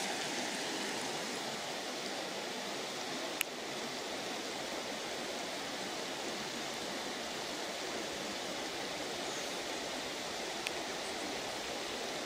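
Shallow river flowing over a flat rock bed, a steady rush of running water. A single light click about three seconds in and a fainter one near the end.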